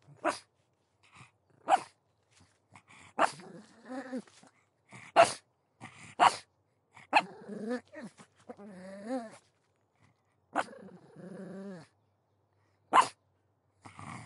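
Pug barking: about eight short, sharp single barks spaced a second or more apart, with longer, wavering, pitched growls and whines between some of them.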